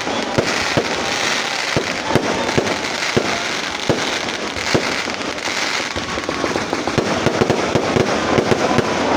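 Fireworks going off in a continuous crackling barrage, with many sharp bangs at irregular intervals.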